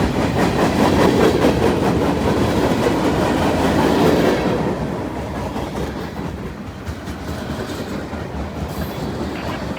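Freight cars of a Norfolk Southern train rolling past, steel wheels clattering over the rail joints. Loud for the first four seconds or so, then dropping off and quieter as the last cars go by.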